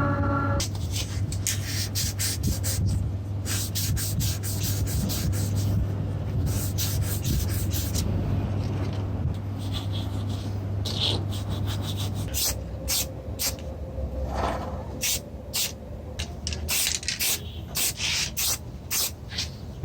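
Repeated abrasive rubbing strokes, like sanding, over a steady low hum; the hum drops away about twelve seconds in, and the strokes come shorter and more separate after that.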